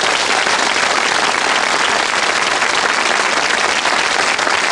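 Studio audience applauding steadily, a dense patter of many hands clapping together.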